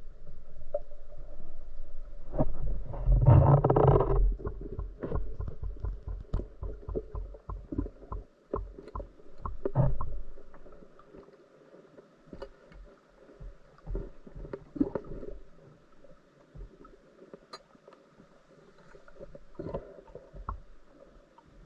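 Underwater sound of a spearfishing dive: a louder rushing burst with a low rumble about three seconds in, then many scattered sharp clicks and knocks that grow sparser and quieter after about ten seconds.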